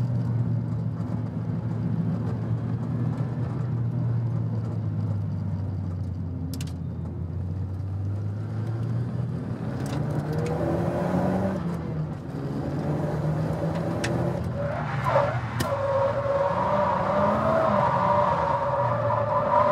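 Nissan Silvia S15 Spec R's turbocharged SR20DET four-cylinder engine heard from inside the car: a steady note for the first several seconds, then rising and falling as the revs change. From about three-quarters of the way through, a loud wavering high tone of tyres squealing sits over the engine as the car slides through a corner.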